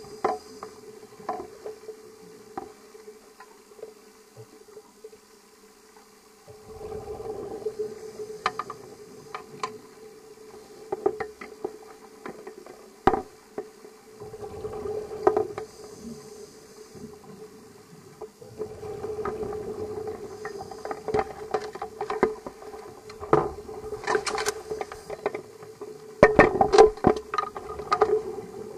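Underwater sound picked up by a diving camera: a scuba diver's exhaled bubbles gurgling in swells every few seconds, with scattered sharp clicks and a steady low hum underneath.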